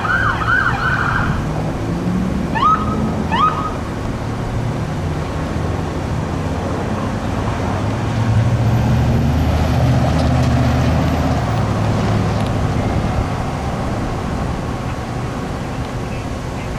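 Electronic siren on a fire department battalion chief's pickup yelping rapidly for about a second, then two short rising chirps about a second apart. Traffic and a vehicle engine passing follow, louder in the middle.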